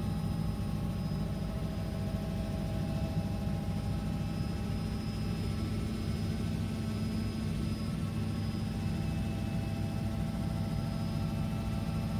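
Cabin noise of a Robinson R66 turbine helicopter in cruise flight: a steady deep drone from the rotor and engine, with faint steady high whines over it.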